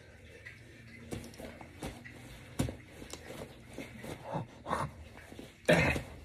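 Heavy breathing: short, forceful breaths in a rough rhythm under hard exertion, the loudest just before the end.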